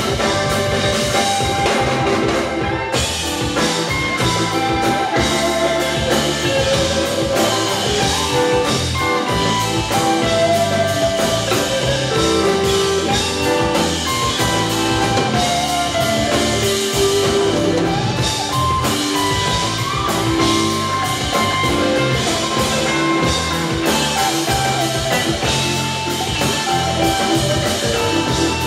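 A live rock band playing an instrumental jam, with electric guitar, bass guitar, drum kit and keyboards, steady and loud.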